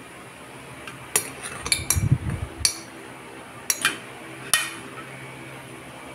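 Sharp, irregular clinks and taps on a glass jar as sliced ginger and garlic are packed into it, about eight in all, with a dull thump about two seconds in.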